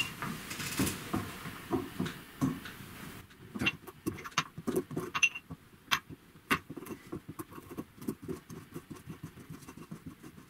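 White ceramic pestle crushing and grinding hard garlic tablets in a ceramic mortar: an irregular run of sharp knocks and clicks as the tablets break, with the pestle scraping against the bowl.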